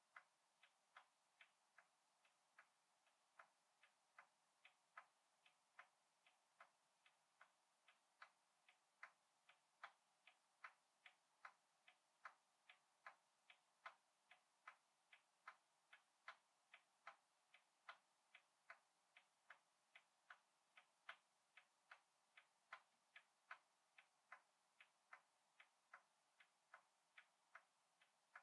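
Small pointed scissors snipping through paper in short, rapid cuts, about two to three faint snips a second, some louder than others.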